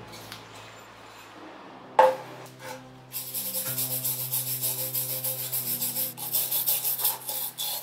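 Hand wire brush scrubbing rust off a round metal lamp part in rapid back-and-forth strokes, starting about three seconds in, after a single sharp knock about two seconds in. Soft background music with held chords plays throughout.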